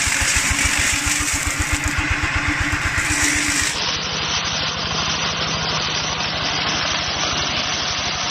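Small engine of a two-wheel walking tractor running steadily under load as it drives a corn-picking attachment through dry corn stalks, a rapid even pulse of about ten beats a second with a hiss over it. About four seconds in, the sound turns duller and more even.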